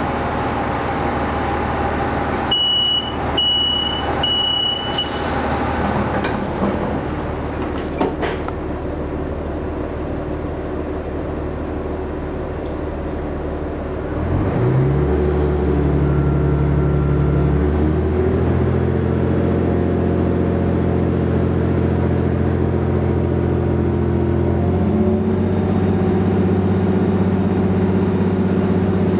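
Inside an Irish Rail 29000 class diesel multiple unit standing at a station: three short, high door-warning beeps, then a couple of knocks as the doors shut. About halfway through, the underfloor diesel engines open up and the train pulls away, the engine note rising and stepping up in pitch twice as it gathers speed.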